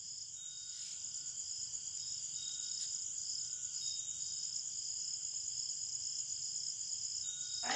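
Faint background noise: a steady high-pitched hiss with soft high tones pulsing on and off.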